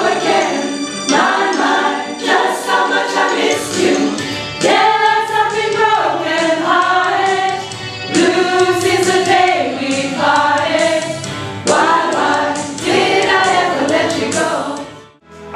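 A group of voices singing together as a choir, breaking off briefly near the end.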